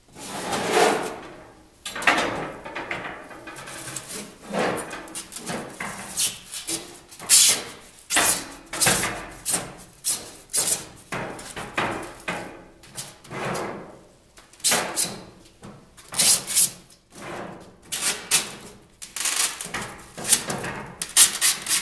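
Styrofoam form blocks being handled and pushed into place around a mailbox on a workbench: foam rubbing on foam and many short, light knocks, irregular throughout.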